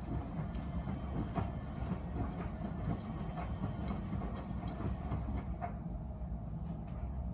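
Miele W Classic front-loading washing machine running its wash cycle: a steady low rumble from the turning drum, with scattered light clicks and knocks from the tumbling laundry. The higher hiss thins out about five seconds in.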